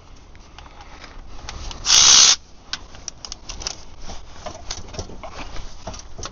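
Tools and parts being handled and put away: scattered light clicks and knocks, with one loud, short rushing hiss about two seconds in.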